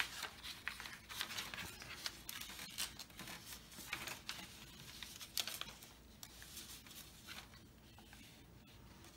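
Paper being folded and creased by hand: a run of faint crisp crinkles and rustles, thinning out over the last few seconds.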